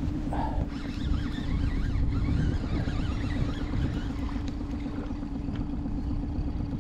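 Steady low rumble of wind and water around a boat, with faint wavering high chirps in the middle.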